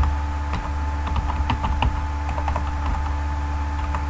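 Typing on a computer keyboard: irregular keystrokes, a few a second, over a steady low electrical hum.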